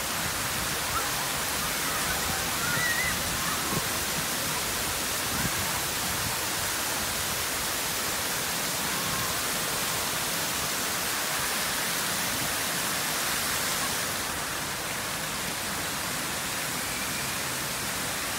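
Row of river fountain jets spraying, their water falling back onto the river surface in a steady hiss. It eases off slightly about fourteen seconds in.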